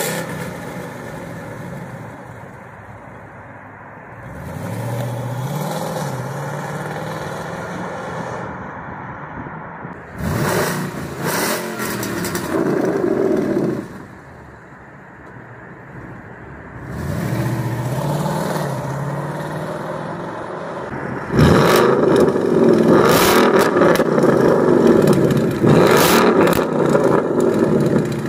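2015 Ford Mustang GT's 5.0 V8 through an Armytrix valved catback exhaust: idling, revved several times and pulling away, first with the valves in their quiet settings, then, from about three-quarters of the way through, with the valves fully open and much louder.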